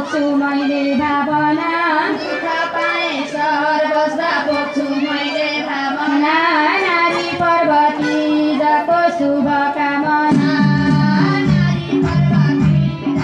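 A Nepali Teej song: a woman's high voice sings over instrumental accompaniment. About ten seconds in, a strong bass beat comes in.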